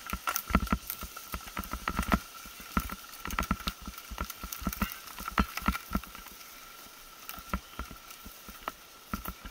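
Mountain bike riding down rough singletrack: irregular clattering knocks as the bike jolts over bumps, thickest in the first few seconds and sparser later.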